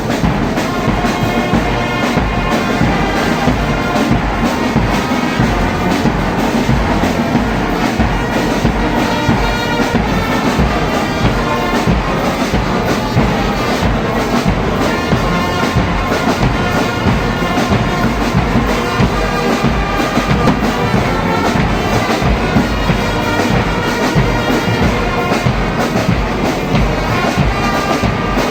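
Brass band playing a tune with brass horns over steady drumming.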